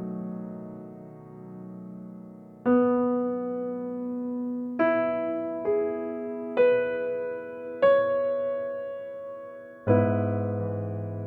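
Slow, gentle piano background music: a held chord fades away, then single notes are struck every second or two, each left to ring out, with a fuller chord coming in near the end.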